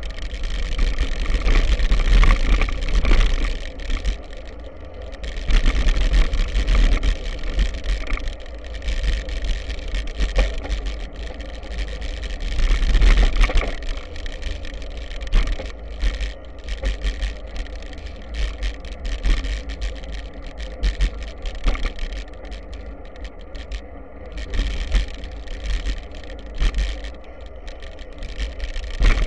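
Wind buffeting the camera microphone, a rumble that swells and fades every second or two, as a B'Twin Triban 100 road bike rolls over a gravel dirt track. Tyre crunch and frequent short clicks and rattles come from the bike over the loose stones.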